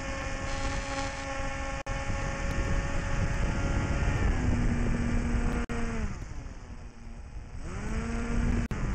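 Small electric RC airplane's motor and propeller whining steadily over wind noise. The pitch steps down about four seconds in and falls away about six seconds in as the throttle comes off, then rises again near the end as power comes back on. A few brief sharp dropouts break the sound.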